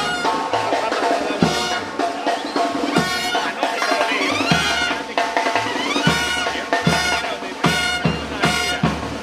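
Panamanian murga band playing: snare and bass drums keeping a steady beat under short, loud brass chords, with a rising brass glide about four seconds in.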